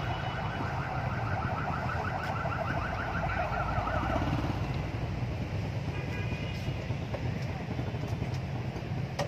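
A warbling electronic alarm tone repeats rapidly for about four seconds and then stops, over a steady low outdoor rumble.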